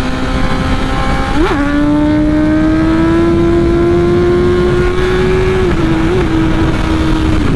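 BMW S1000RR inline-four engine running at speed, its pitch climbing slowly as it pulls in gear, with a quick blip of revs about a second and a half in and another near six seconds, and small drops in pitch between. A steady rush of wind noise lies under it.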